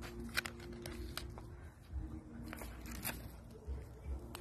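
Paper food wrapper crinkling and crackling in a few sharp bursts as a dog noses and eats from it, over a low steady hum.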